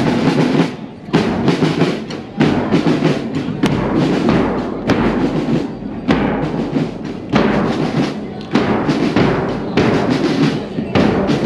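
A marching band in a street parade playing a march, led by drums and bass drum, in phrases with short breaks about every second and a half.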